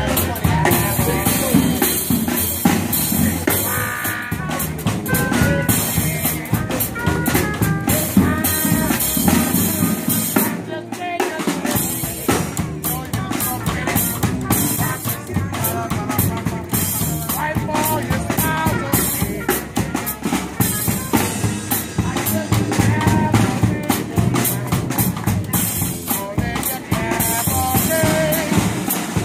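A street brass band playing up-tempo: bass drum and snare keeping a steady beat under sousaphone, trumpet, trombone and plucked upright bass. The low end drops out for a moment about eleven seconds in.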